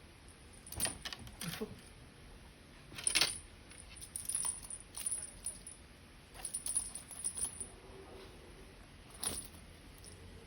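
Short jingling, clinking rattles in bursts every second or so as a cat bats and paws a toy fish around, the loudest about three seconds in.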